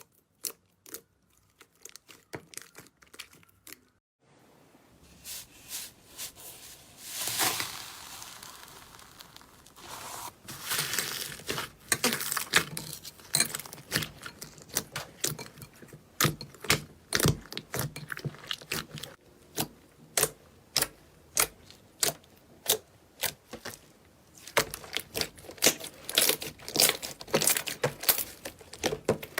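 Slime being squeezed and pressed by hand: a quick, irregular run of sticky pops and crackles. Sparse for the first few seconds, then dense.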